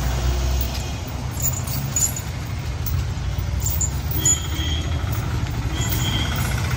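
A vehicle engine running nearby on the road, a steady low rumble, with short light clicks now and then.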